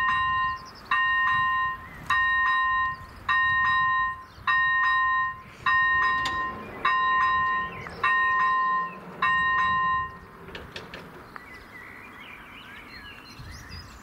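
Level crossing warning bell sounding an electronic ding about once a second, nine times, while the barriers lower, then falling silent about ten seconds in once the barrier arms are down. Faint bird chirps follow near the end.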